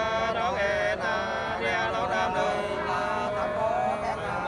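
Unaccompanied hát sli singing, the Nùng people's antiphonal folk love song: voices holding long, wavering notes.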